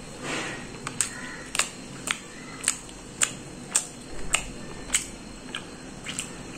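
Someone chewing a bite of fried chicken 65 close to the microphone, each chew giving a sharp wet mouth click at a steady pace of a little under two a second.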